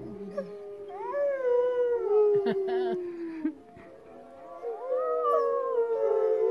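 Wolves howling in chorus: long, overlapping howls that rise and then slowly fall in pitch, with a brief lull about three and a half seconds in before the howling starts up again.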